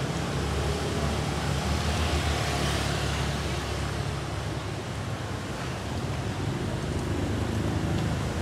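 Street traffic: the low engine rumble of a vehicle passing close, strongest over the first five seconds or so and swelling about two to three seconds in, over a steady hiss of road noise.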